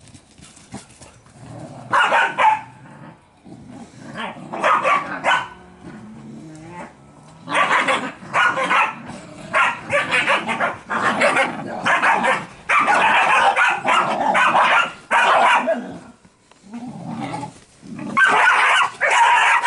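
A group of puppies barking and yipping in quick, repeated bursts as they play-fight and sort out dominance. The barking is thickest through the middle, eases off briefly, then picks up again near the end.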